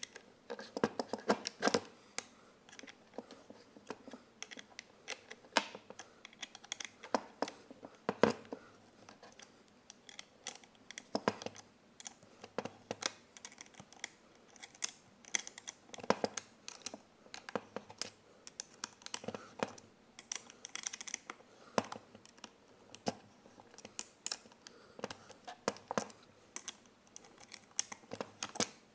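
Irregular small clicks, taps and scrapes of hand tools and metal parts being handled on a wooden workbench: an Allen key, screws and the chainsaw bracket being fitted to a cordless angle grinder.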